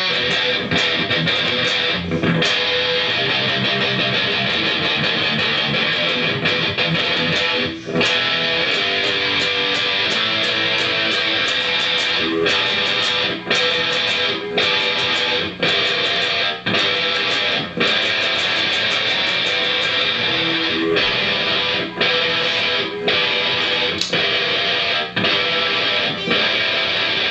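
Electric guitar played through an amplifier: a continuous picked riff broken by short sharp stops, most often about once a second in the middle part.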